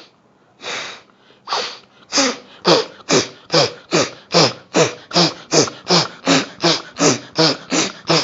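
Forceful nasal exhalations of Kapalabhati breathing, the breath pushed out through one nostril at a time. A few slow puffs at first, then a quick, even run of about two and a half sharp puffs a second.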